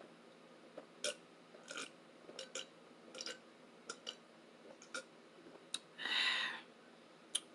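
Close-up eating sounds from a bowl of oatmeal: a scattered series of soft clicks and wet mouth smacks, then a short slurp about six seconds in.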